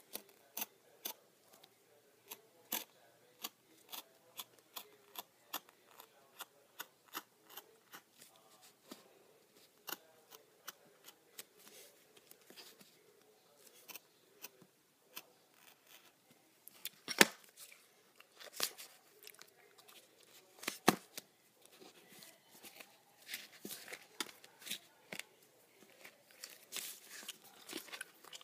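Hobby knife blade cutting and scraping on a plastic cutting mat: an irregular run of short, sharp clicks and scratches, with two much louder knocks a little after the middle.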